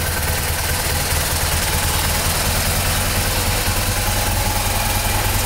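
BMW R1200GS flat-twin boxer engine idling steadily.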